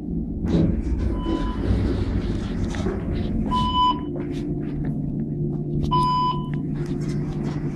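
Kone elevator car: a click as the door-open button is pressed, then the doors open over a steady rumble. An electronic beep sounds three times, about two and a half seconds apart, the first one faint, and a steady low hum sets in about four seconds in.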